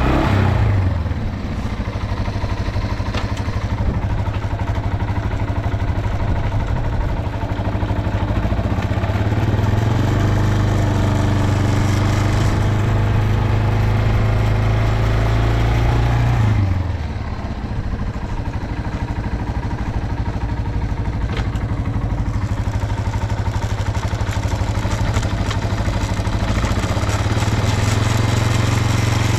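Yamaha TW225's air-cooled single-cylinder four-stroke engine running steadily. Its revs fall back about a second in and again just past halfway, then slowly build up again. It runs cleanly, with no abnormal noise according to the seller.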